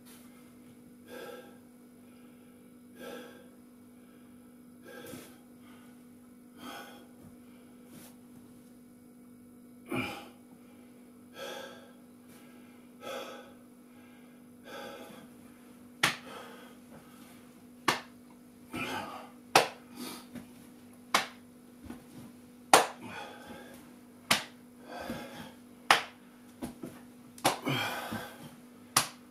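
A person's heavy breathing during exercise, with an exhale about every two seconds. From about halfway, sharp slaps and smacks come in among the panting breaths.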